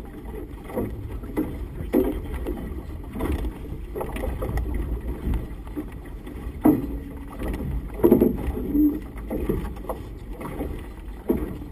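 Wind buffeting a small open motorboat in choppy water: a steady low rumble broken by irregular low thumps every second or so, the loudest a little past the middle.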